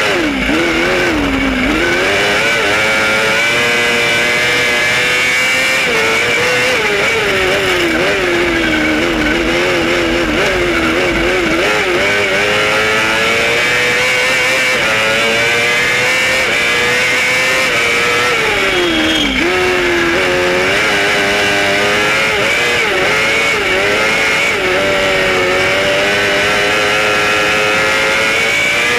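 Cross kart engine racing hard, heard from onboard, its revs climbing and falling through the gears and corners, with a sharp drop in revs and a climb back about two-thirds of the way in.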